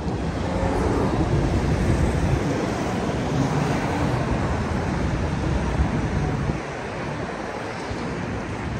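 City road traffic: the steady rush of passing vehicles, loud for the first six and a half seconds and then easing off a little.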